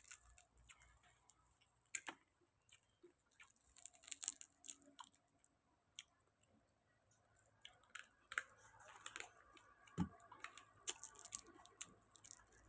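Faint chewing and crunching with scattered sharp clicks, from a person eating grilled field rat and spicy papaya salad. A few louder crunches come about 2, 4 and 10 seconds in.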